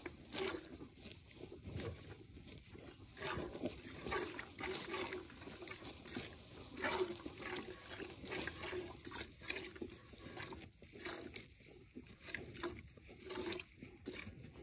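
Milk squirting in short, rhythmic streams into a stainless steel pail as a cow is hand-milked, each squeeze a brief hiss striking the metal.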